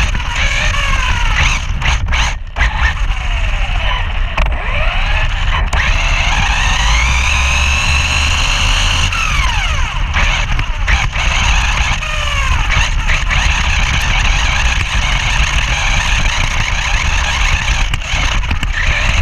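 Brushless electric motor of a 1/8-scale HSP Planet RC buggy whining, its pitch rising and falling again and again as the car speeds up and slows down. A heavy rumble of wind and ground runs underneath, heard on a camera mounted on the car, with occasional knocks from bumps.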